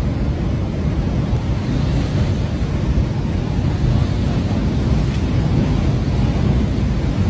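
Mud and debris flow surging down a mountain torrent channel after heavy rain: a loud, steady, deep rushing rumble.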